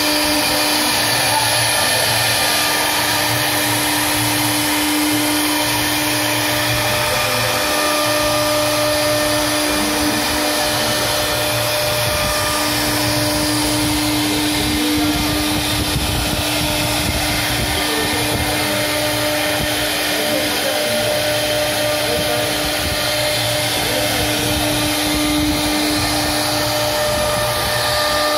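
CNC router spindle running at speed with a steady high whine while its bit carves a wooden blank, the cutting hiss shifting as the tool moves. The whine dips briefly a few times.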